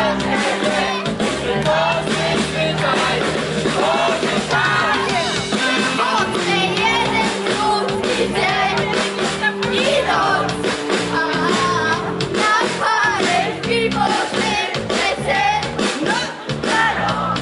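Live pop-rock band with a singer, heard loud from within the concert audience.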